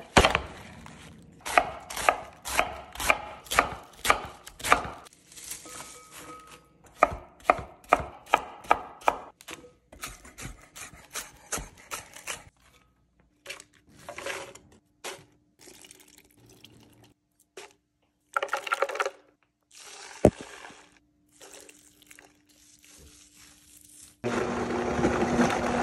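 Chef's knife chopping cabbage and green onions on a wooden cutting board, in quick runs of sharp knocks. About 24 seconds in, a countertop blender starts, blending the dressing ingredients with a loud steady whirring.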